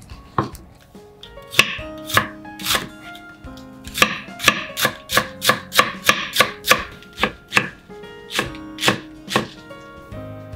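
Kitchen knife cutting napa cabbage into thin strips on a wooden cutting board: crisp cuts, a few spaced strokes at first, then a steady run of about three a second, slowing to a few last cuts before stopping.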